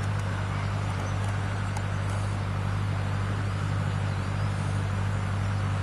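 Steady rushing of a fast-flowing river, with a constant low hum underneath.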